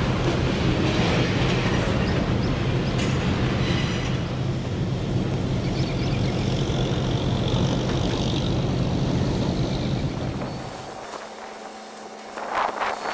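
Diesel locomotive running steadily with wheel and rail noise as the train moves over the track; the engine sound drops away about eleven seconds in. Wind buffets the microphone near the end.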